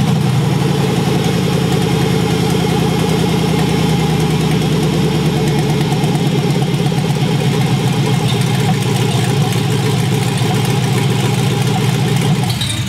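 LS-swapped 1968 GMC pickup's V8 running steadily on its first fire-up after the rebuild, with no exhaust system fitted yet, then shut off near the end.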